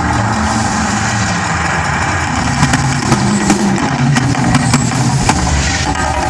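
Steady low rumbling roar of the Mirage volcano eruption show, with scattered sharp cracks through the middle seconds.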